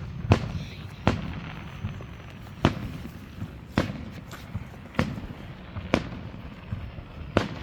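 Fireworks going off: about seven sharp bangs at uneven intervals of roughly a second, over a continuous low rumble.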